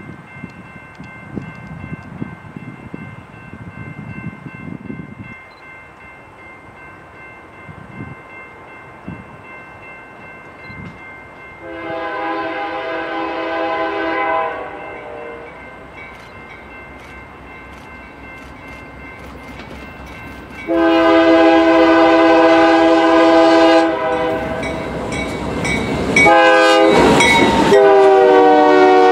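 Air horn of a BNSF GE C44-9W diesel locomotive leading an intermodal freight train: a long blast around the middle, a louder second long blast, then a last blast that falls in pitch as the locomotive passes close by.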